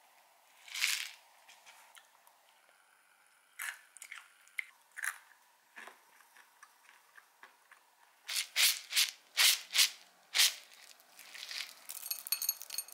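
Dry berry granola crunching: a brief rattling pour from a jar about a second in, scattered clicks, then a string of five or six loud crunches at about three a second, and a patter of granola sprinkled into a bowl near the end.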